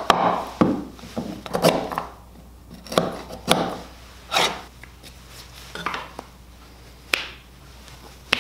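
Steel chisel chopping and paring into a small wooden block to elongate a drilled hole: irregular sharp knocks and scrapes of steel on wood, roughly one a second.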